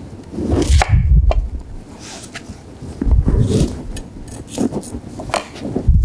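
Chef's knife cutting through a red onion and knocking on a cutting board, with a few dull thumps and short clicks as the onion halves are handled.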